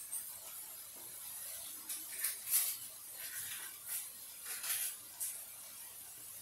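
Hamburger steaks frying in a skillet, a faint steady sizzle, with a few short, louder bursts of noise about two, three and a half, and five seconds in.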